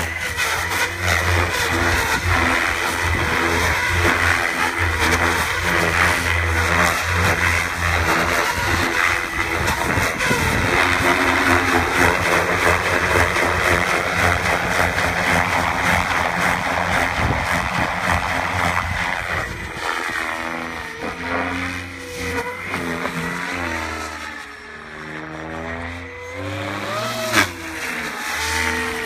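Goblin 700 electric RC helicopter in flight: its three-bladed main rotor, spinning at about 2000 rpm, makes a loud steady chop over the electric motor's whine. Over the last several seconds the sound thins and swoops up and down in pitch as the helicopter climbs and passes, with one brief loud whoosh near the end.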